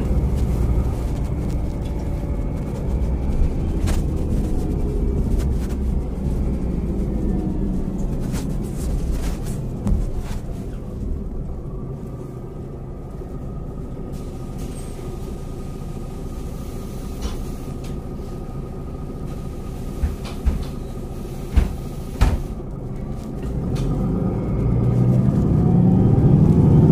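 City bus diesel engine running, dropping to a quieter idle for about ten seconds with a few sharp clicks, then revving up with a rising pitch as the bus pulls away near the end.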